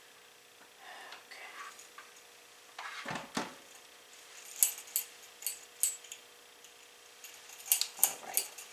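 Kitchen utensils clinking and tapping against metal cake pans as cake batter is scraped from hand-mixer beaters and a spatula into the pans: a dull knock about three seconds in, then a run of sharp light clinks.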